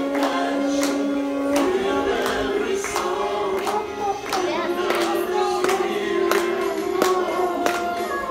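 Voices singing a song together, with steady hand-clapping about twice a second.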